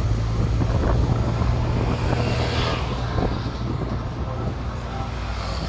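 Steady low engine drone and road noise from inside an open-sided tuk-tuk moving through city traffic, with a brief swell of hiss about halfway through.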